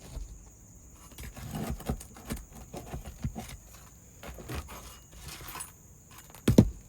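Scattered scrapes, light taps and footsteps from work on an asphalt shingle roof, with one heavy thump near the end.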